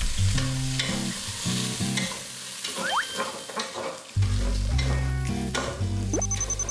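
Food sizzling in a pot on the stove as it is stirred, over background music with a bass line that gets louder about four seconds in. Two short rising whistles are heard, one midway and one near the end.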